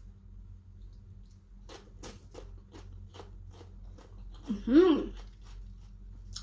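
Crunching bites and chewing of raw sliced red radish: a quick run of crisp crunches about two seconds in, with a few fainter ones later. About halfway through comes a short pitched voice sound from the eater, the loudest moment.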